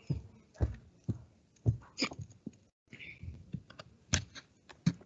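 Irregular clicks and light knocks, a dozen or so in a few seconds, from small objects being handled close to the microphone.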